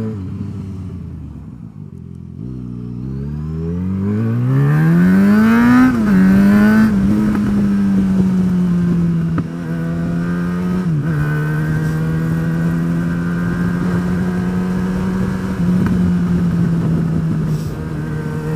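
Motorcycle engine under way: the revs sag at first, then climb steadily as the bike accelerates. The pitch drops sharply at two upshifts, about six and eleven seconds in, and the engine then holds a steady cruising note.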